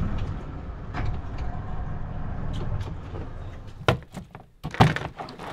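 A steady low rumble that fades out, then two loud, sharp knocks about a second apart near the end.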